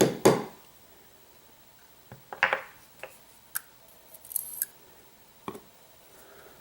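Small sharp metal clicks and taps, about half a dozen spread over a few seconds, from handling the pins and parts of a disassembled pin tumbler lock.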